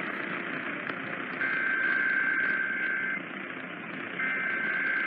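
EAS header data bursts (SAME digital code) received over AM radio: a burst of paired high data tones lasting about two seconds starts a little over a second in, then a second burst starts after a one-second gap. Radio hiss and static run underneath.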